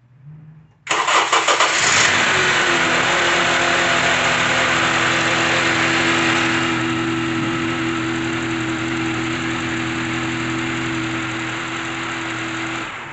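2012 Honda CR-V's 2.4-litre four-cylinder engine cranking and catching about a second in, then idling steadily from a cold start and shut off near the end. With a new serpentine belt fitted in place of a stretched, worn one, the idle runs without the knocking it used to make when cold.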